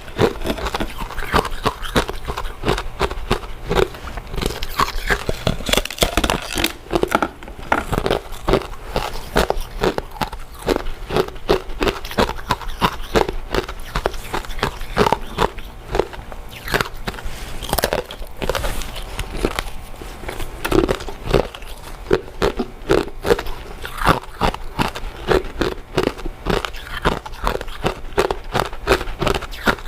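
Close-miked chewing of soft, chewy glutinous rice desserts: continuous wet, sticky mouth clicks and smacks as the rice cake is bitten and chewed.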